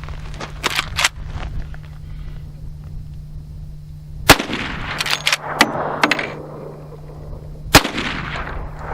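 Two shots from a Marlin Model 1894 CS lever-action rifle in .357 Magnum, about three and a half seconds apart. Each shot is followed by a rolling echo that fades over about a second, with smaller clicks between the shots.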